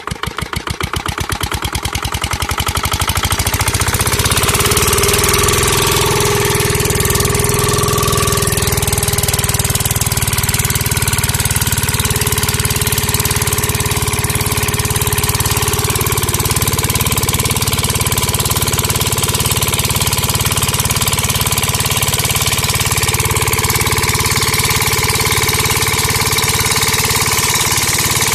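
Small electric motor in a homemade model tractor driving a miniature chaff cutter by belt. Rapid clicking speeds up over the first few seconds as it spins up, then settles into a steady whirring run with a buzzy rattle.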